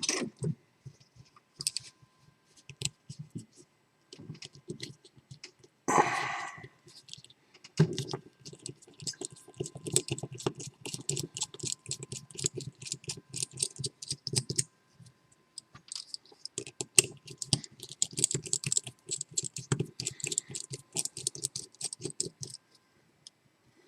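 Rapid small metal clicks and rattles from a padlock being taken apart by hand, as tools and the lock's internal parts knock together. The clicks are sparse at first, with one brief louder noise about six seconds in, then come thick and fast for most of the rest.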